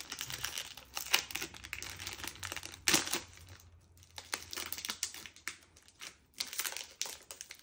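A snack bar's wrapper crinkling and tearing as it is pulled open by hand, in irregular crackles, the loudest about three seconds in.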